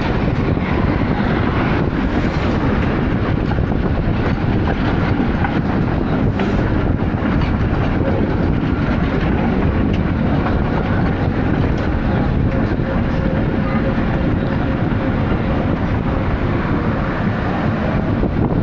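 Konstal 102Na articulated tram running along the track, heard from aboard: a steady loud rumble of wheels and running gear with frequent rattles and clicks. A faint thin whine joins it about two-thirds of the way in.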